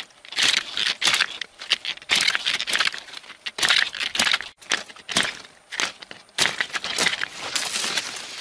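A large knife hacking and slicing through a yucca's fleshy flower stalk at its base, a long run of short cuts about two a second, among rustling yucca leaves and blossoms.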